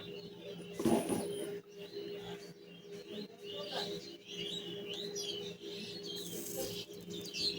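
Birds chirping in the background, many short twittering calls, over a faint steady hum, with a brief clatter about a second in.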